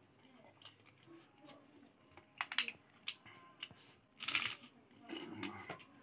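Close-up eating sounds: wet mouth clicks and smacks while chewing pork and rice, with a louder crisp crunch about four seconds in as a raw cabbage leaf wrapped around the food is bitten.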